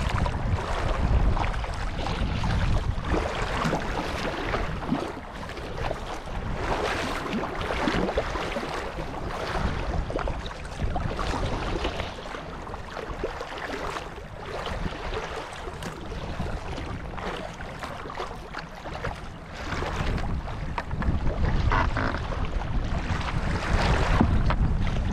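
Water splashing and swishing around a kayak in irregular strokes, over a steady low rumble of wind on the microphone.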